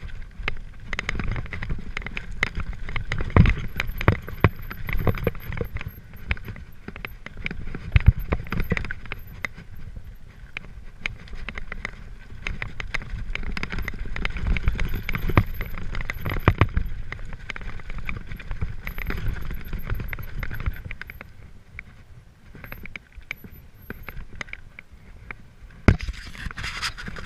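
Mountain bike riding fast down a rocky gravel trail: tyres crunching over loose stones and the bike rattling and clattering, with several sharp knocks as it hits rocks.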